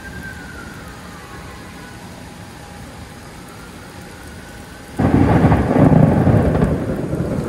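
Steady rain falling, then about five seconds in a sudden loud clap of thunder that keeps rumbling.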